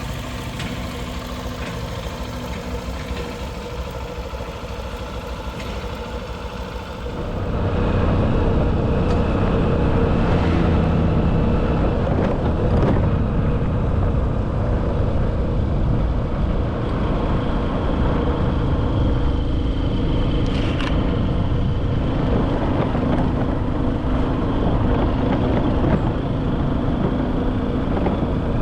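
A motor engine running steadily, getting clearly louder about seven seconds in.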